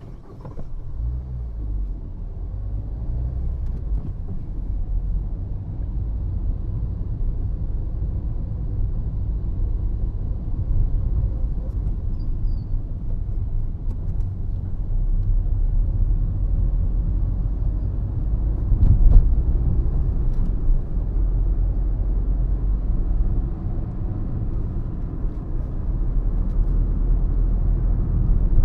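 Low, steady rumble of a car driving, heard from inside the cabin: engine and road noise. It grows louder over the first couple of seconds, and there is a brief thump about two-thirds of the way through.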